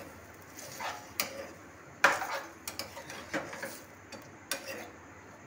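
Steel spoon stirring chopped beetroot and tomato in a stainless steel saucepan, scraping and clinking against the pan several times, loudest about two seconds in.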